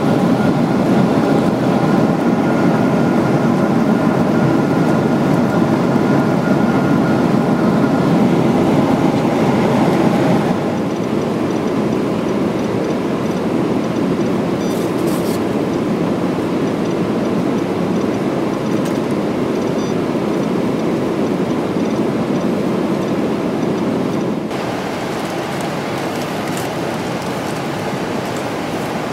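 Jet airliner cabin noise: a steady roar of engines and airflow with a faint high whine in the first part. The level steps down abruptly twice, about ten seconds in and again near the end.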